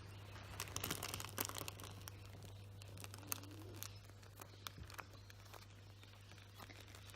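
Faint crinkling and rustling from hands handling a squishy toy and its plastic packaging: a cluster of small crackles in the first two seconds, then scattered light ticks, over a steady low hum.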